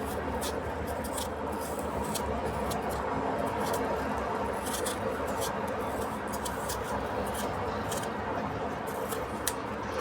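Kitchen cooking noise: a steady hum with many irregular light clicks and taps of utensils.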